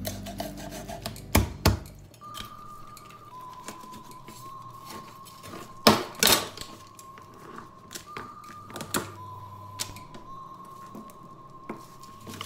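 Chef's knife chopping through whole barramundi on a wooden cutting board: a string of sharp knocks of the blade hitting the board, the loudest two close together about six seconds in, with softer cutting and rubbing in between.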